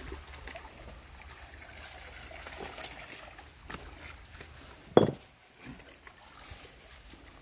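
Soft water sounds of a swimmer moving face-down through a shallow river pool: light splashing and trickling. A single sharp, loud knock or splash comes about five seconds in.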